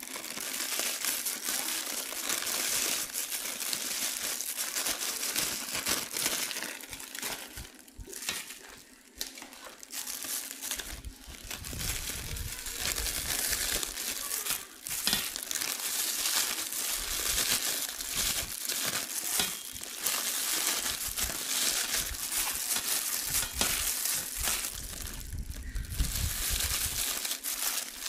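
Thin plastic bags and disposable plastic gloves crinkling and rustling continuously as handfuls of salted mustard greens are pushed into the bags for pickling, easing off briefly twice.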